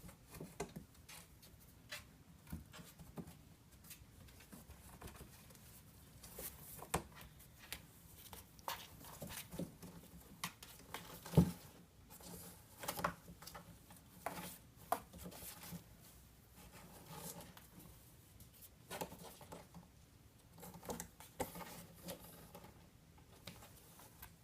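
Kittens moving and playing about a small room: scattered light taps, scuffs and patters at irregular intervals, with one louder knock about halfway through.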